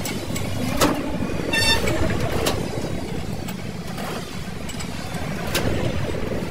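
Steady low rumble of a vehicle running nearby, with a few sharp metallic clicks and a brief ringing tone about one and a half seconds in.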